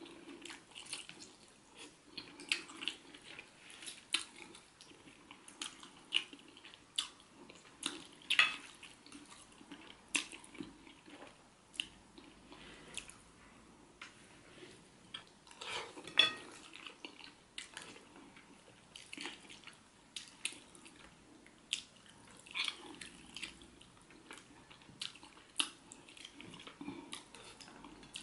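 Close-up eating sounds: a spoon clicking and scraping irregularly on a plate, with chewing and mouth noises from eating catfish head in pepper soup. Two of the clicks, about 8 and 16 seconds in, are louder than the rest.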